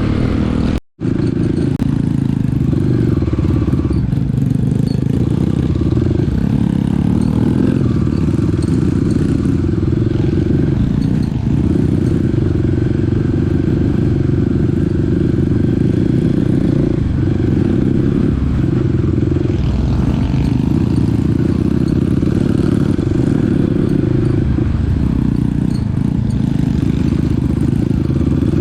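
Small dirt bike's engine running steadily while being ridden, with the sound cutting out for a moment about a second in.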